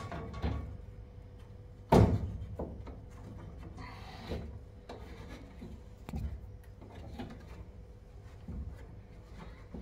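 Handling noise from a new refrigerator compressor being shifted on the floor, with rubbing and small knocks and one sharp knock about two seconds in.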